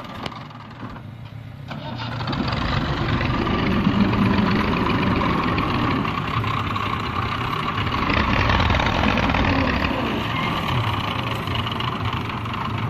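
Massey Ferguson 240 tractor's diesel engine running under load as it moves a loaded trolley. It picks up about two seconds in and then runs steadily loud.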